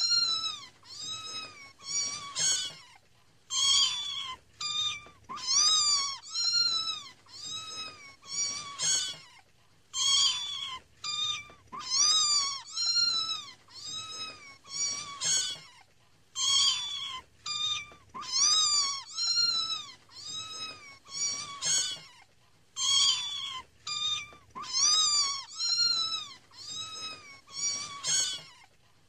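Kittens meowing again and again: high, thin meows that rise and then fall in pitch, one or two a second with short pauses between runs.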